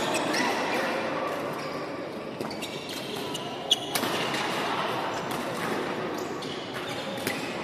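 Badminton play in a large hall: a few sharp racket-on-shuttlecock hits, the loudest about halfway through, with short shoe squeaks on the wooden court and background chatter echoing in the hall.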